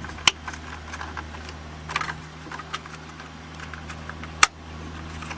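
Plastic air-intake parts being handled and fitted by hand: scattered clicks and rattles, with sharp snaps about a third of a second in and again about four and a half seconds in, over a steady low hum.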